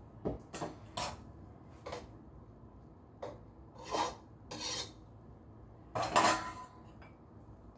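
A metal spoon scraping and knocking against a pot in about eight short, irregular strokes, the longest and loudest about six seconds in, as cooked rice is scooped out.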